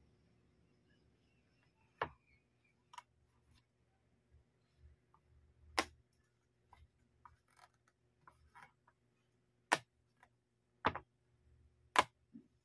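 A Samsung Galaxy Tab S6 Lite book cover and S Pen being handled: about five sharp clicks with light taps between them as the pen is set into the cover's magnetic pen slot.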